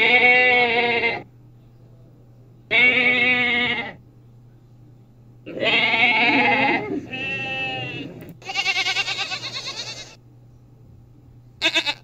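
Goats bleating: five or six separate calls of about a second each, with pauses between, one of them with a fast quavering tremble.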